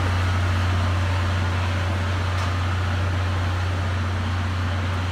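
Steady low hum with an even fan-like rush from the standing passenger coaches' onboard equipment, running without change.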